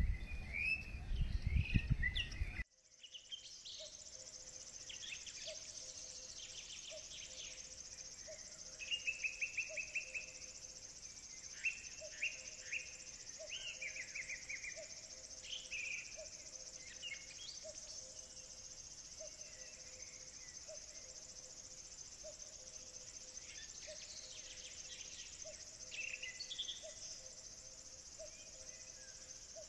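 Outdoor insect and bird ambience: a steady high-pitched insect drone, birds chirping now and then, and a low pip repeating about once a second. The first couple of seconds, up to a sudden cut, are louder, with a low rumble on the microphone under the bird calls.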